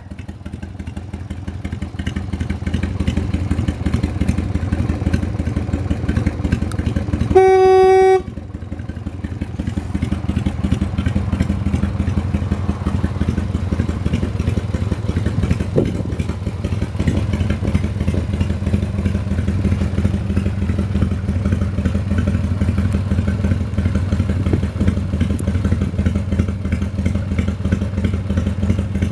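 1995 Harley-Davidson Dyna Wide Glide's 1340 cc Evolution V-twin running steadily. About seven seconds in there is a single horn beep of under a second.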